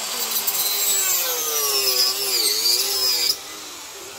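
Hand-held electric wood-cutting saw running through a wooden plank, its motor note dipping and recovering under load, then cutting off abruptly about three seconds in.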